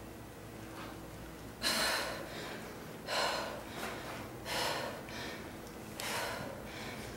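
A woman's hard breathing under exertion during a high-intensity squat set: about five short, forceful exhales a second or so apart, the loudest about two seconds in.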